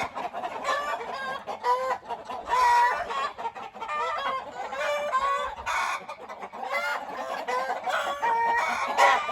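A flock of chickens clucking and cackling, many short overlapping calls, the birds agitated by a large owl inside their coop.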